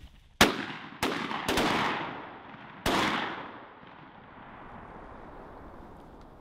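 Four shotgun shots in quick succession, the first the loudest, two close together about a second in and a last one near the three-second mark, each followed by a trailing echo that fades off.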